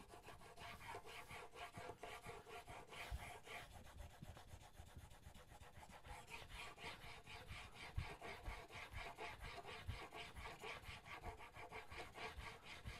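Steel chisel bevel rubbing on a 500-grit sharpening stone, held in a Sharp Skate honing guide and pushed back and forth in quick, even strokes. The steady, faint scraping is the grinding that squares the bevel and raises a burr.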